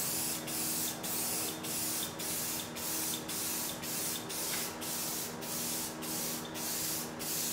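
Aerosol spray paint can hissing as a metal firewall sheet is painted, in short repeated bursts a little under two a second.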